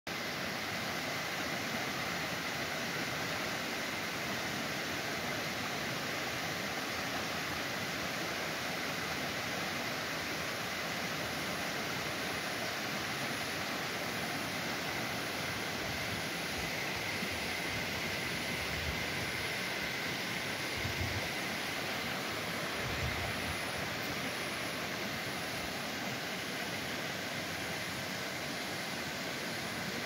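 Small forest stream cascading over rocks: a steady rush of water. A faint high chirp, repeating about once a second, joins about ten seconds in.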